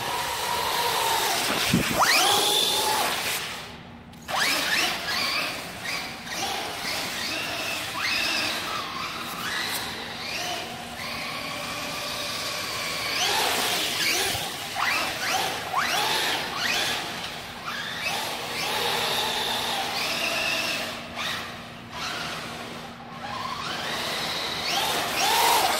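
Traxxas RC truck's electric motor whining up and down in pitch with the throttle while its tyres squeal as it drifts on smooth concrete. There are sharp rising whines about two seconds in, around the middle and near the end.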